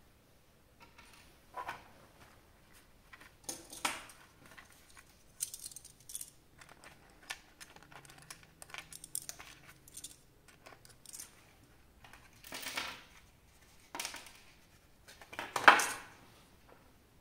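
Small hard plastic parts and packaging being handled: scattered clicks, taps and short rustles, with the loudest clatter near the end.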